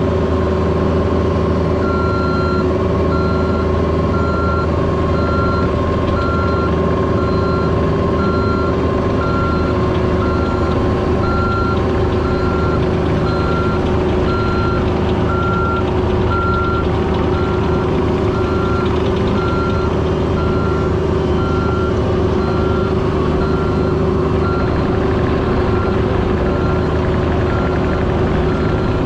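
A work machine's engine running steadily, with a backup alarm beeping in an even rhythm from about two seconds in.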